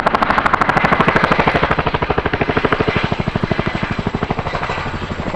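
RAF Chinook's tandem rotors making their characteristic blade slap, a rapid, even train of loud pulses during a hard manoeuvre. It eases slightly in the second half.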